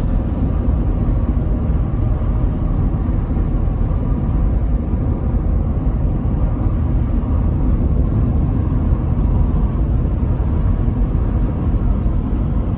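A car driving: a steady low road and engine rumble.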